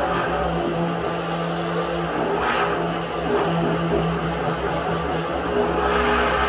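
Philco PMX600 600 W stick (immersion) blender motor running steadily with a low hum, its blade blending a thick banana-and-milk smoothie in the beaker.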